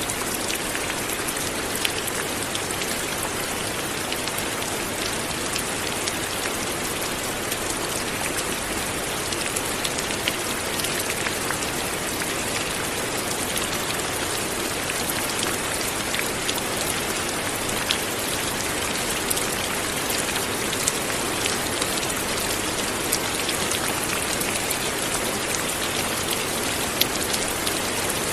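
Light rain falling steadily, a continuous even hiss with scattered individual drops ticking on a surface.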